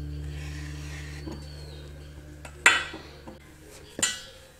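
Kitchen utensils knocking on a wooden pastry board: a sharp clack about two and a half seconds in and a second, softer one a little over a second later, as the knife is put down and the wooden rolling pin is taken up. Low background music fades out underneath.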